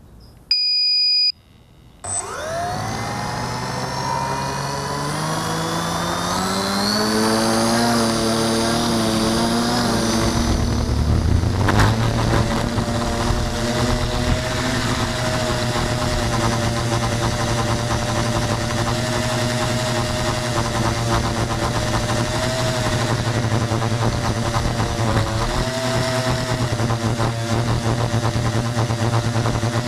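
A short electronic beep, then a tricopter's electric motors and propellers spin up with a rising whine over several seconds. A single knock comes about twelve seconds in. After that the motors settle into a steady, loud buzzing hum that wavers slightly in pitch as the tricopter flies.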